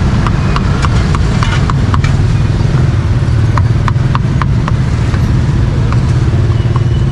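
Cleaver chopping grilled braised pork on a chopping board: runs of quick, sharp knocks, several a second. Under them a steady low rumble of street traffic and engines.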